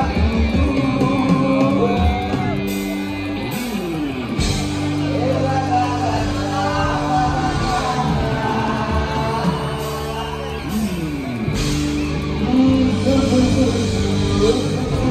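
Loud live music from a stage sound system: a singer on the microphone over a band with a steady bass line, with the crowd near the stage yelling along.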